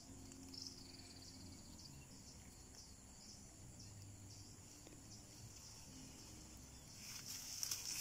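Faint, steady chirping of insects in riverside vegetation, pulsing at a regular beat. Near the end, a louder rustling of tall grass brushing past.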